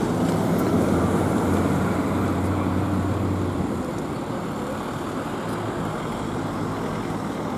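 Street traffic noise: a vehicle engine humming close by over general road noise, the hum fading about halfway through.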